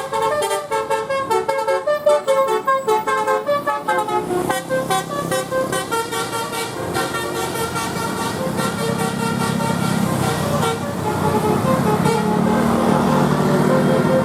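Bus telolet 'basuri' multi-tone air horn playing a quick tune of short tooting notes for the first several seconds. The notes then thin out and a louder low drone builds up toward the end.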